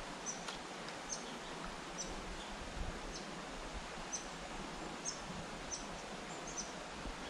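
Quiet creekside ambience: a steady soft hiss, with a small bird's short high chirps repeating every half second or so.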